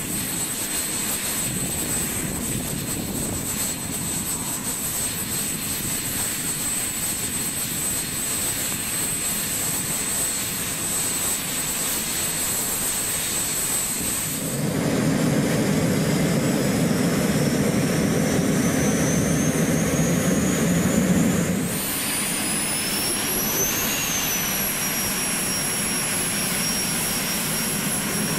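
Twin J85 turbojet engines of a Cessna A-37 Dragonfly running as it taxis, a steady high-pitched whine over a broad rush of jet noise. About halfway through a louder, deeper rumble joins for several seconds, and near the end the whine rises and then falls away.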